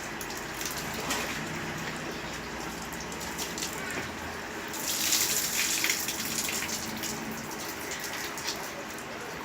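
Steady rushing noise like water running from a tap, louder and brighter for about a second around five to six seconds in.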